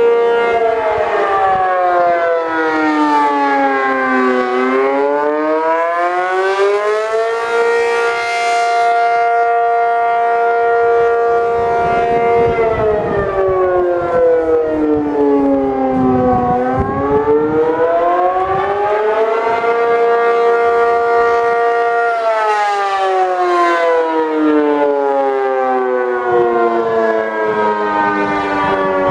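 ACA P-50 electromechanical outdoor warning siren sounding the attack signal: its pitch winds down, climbs back up and holds at the top for several seconds, in two full cycles.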